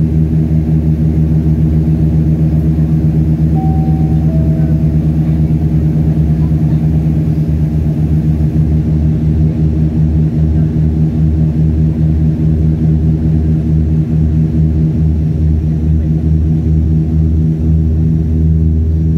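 Turboprop airliner engine and propeller heard from inside the cabin: a loud, steady drone made of several low hums with a fast pulsing beat. A short two-note falling chime sounds about four seconds in.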